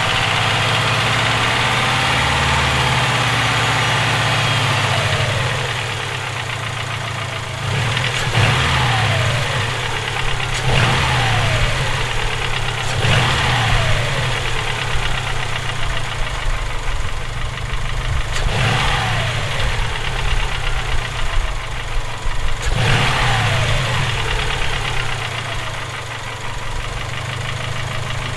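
Subaru EJ257 turbocharged 2.5-litre flat-four running, settling from higher revs and then blipped about five times, each rev rising quickly and falling back to idle. The owner questions whether the engine has rod knock.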